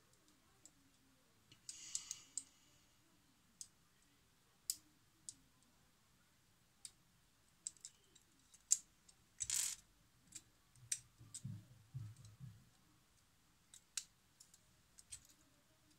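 Small plastic LEGO pieces clicking and rattling as a toy motorcycle frame is worked and pressed together by hand: sparse irregular clicks, a brief rustle twice, and a few soft low knocks past the middle.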